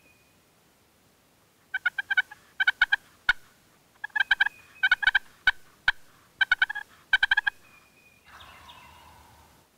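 Turkey calling in short, fast bursts of sharp notes: three pairs of bursts, each burst under half a second, with a few single clicks between them.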